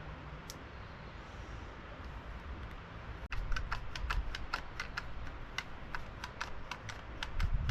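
A rapid, irregular run of light, sharp clicks, about five a second, starting about three seconds in over a faint steady low hum.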